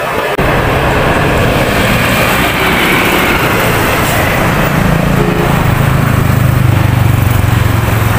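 Roadside traffic noise, with a small motorcycle engine humming and growing louder in the second half as it comes closer.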